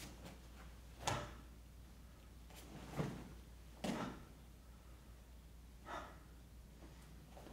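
Four short snaps and thuds from a martial-arts uniform and bare feet on foam mats as he strikes and steps through a form, the loudest about a second in, over a low steady room hum.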